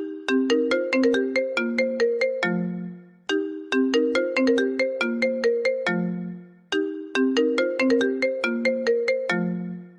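A mobile phone ringtone: a melody of quick struck, bell-like notes that loops about every three and a half seconds, each phrase ending on a lower held note that fades away before the phrase starts again.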